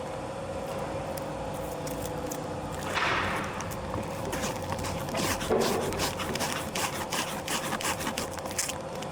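Wooden pieces rubbing, scraping and knocking as they are handled. A louder scrape comes about three seconds in, and a run of sharp clicks and taps comes in the second half. A steady machine hum runs underneath throughout.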